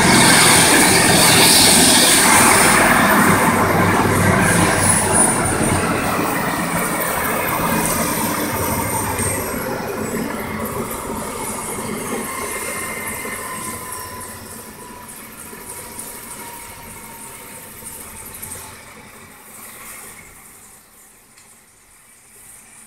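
ADAC rescue helicopter's turbine engines spooling down on the pad after landing: whining tones glide down in pitch while the rotor noise fades steadily until it is faint near the end.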